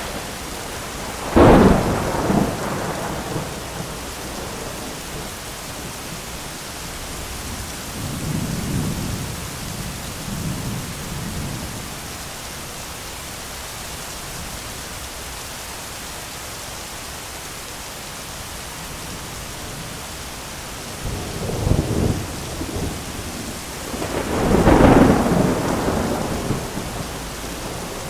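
Heavy rain falling steadily through a thunderstorm, with thunder: a sharp clap near the start, a softer rumble about eight seconds in, and two more claps near the end, the second the loudest, rolling off over a couple of seconds.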